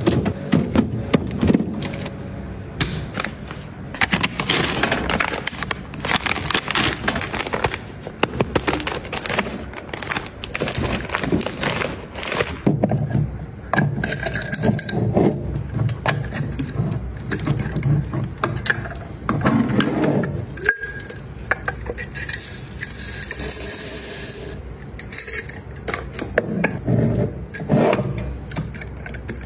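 Plastic drink bottles knocking and rattling as they are set into a fridge's bottle rack; then, about halfway through, glass clip-top jars clinking as their wire clasps are flipped open and the glass lids and jars are handled.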